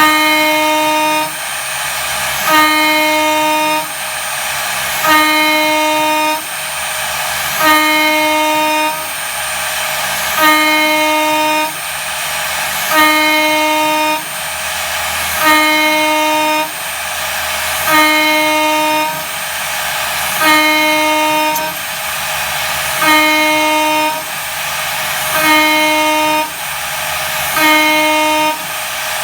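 CNC mill's 8 mm two-flute end mill cutting aluminium at full 15 mm depth with a 1 mm stepover, spindle at about 20,000 rpm. Each cutting pass is a steady, loud, pitched whine lasting a little over a second, breaking off briefly between passes, about every two and a half seconds, over a constant hiss.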